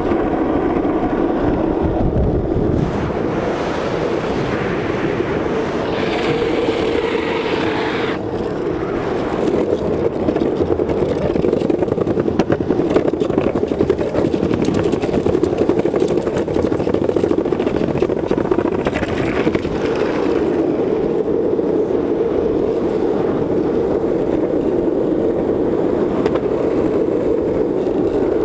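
Skateboard wheels rolling fast down an asphalt road: a steady roar with a constant hum and a fine crackle from the road surface. Extra hiss swells twice, a few seconds in and again past the middle.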